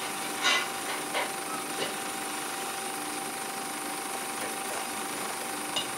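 Steady hum and hiss from a film screening's sound system in a pause between lines of dialogue. A few short faint noises come about half a second in, about a second in and near the end.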